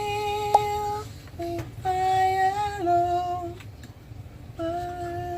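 Background music: a slow song with a female voice holding long, steady notes, three in a row with short gaps, over a steady low rumble, and one sharp click about half a second in.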